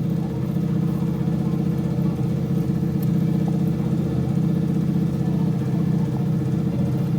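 An engine running steadily at a constant idle-like speed with a fast, even chug.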